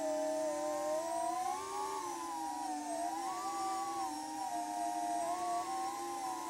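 iFlight MegaBee FPV quadcopter's motors and propellers whining as it flies. Several pitches waver up and down together as the throttle changes.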